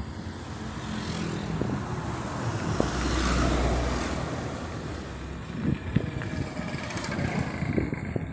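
Road traffic noise heard from a moving bicycle, with a truck's engine passing close and loudest about three to four seconds in. Short knocks follow toward the end.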